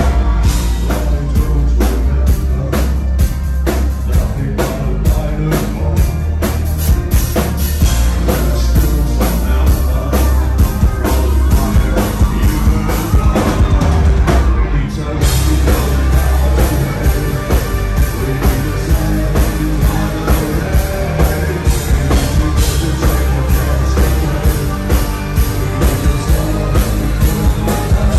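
Live rock band playing loud, with a pounding drum kit, guitar, keyboards and a singer. The bass is very heavy and the drum beat is steady.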